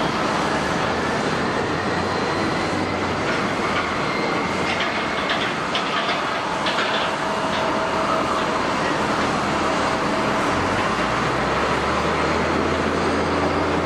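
Jet airliner engines running: a loud, steady rushing noise with a faint whine rising over the first few seconds.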